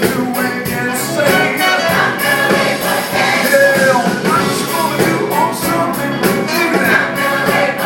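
Live gospel-style choir and band performance: voices singing over a rock band with a steady beat.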